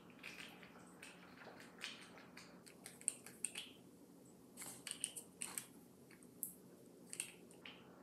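Faint clicks and crinkles of a small plastic bottle of cube lube being handled and pried at its cap by fingers, in scattered bursts that come thickest around the middle.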